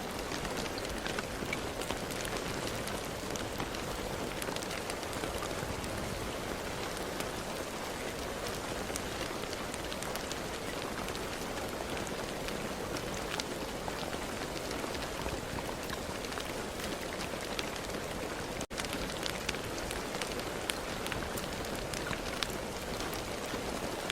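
Steady rain falling, an even hiss with many individual drops ticking on a surface. The sound cuts out for an instant about three-quarters of the way through, then resumes as before.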